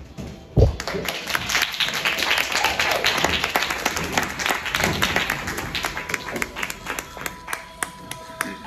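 Audience applause: many hands clapping. It starts right after a single heavy thump about half a second in and dies away over several seconds. Near the end, music with sustained notes comes in.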